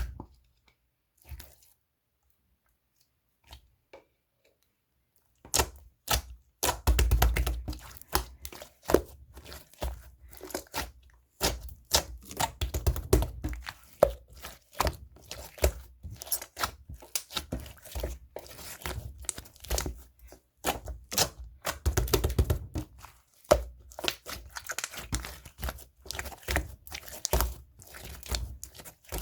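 Green marbled slime being squished, pressed and stretched by hand: dense, irregular sticky clicks, pops and crackles with soft low thuds, starting about five seconds in after a near-silent start with a few single clicks.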